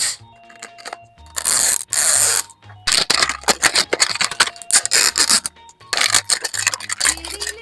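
Plastic toy packaging being torn open and crinkled: two long tearing rips followed by dense crackling and clicking of the wrapper, over background music.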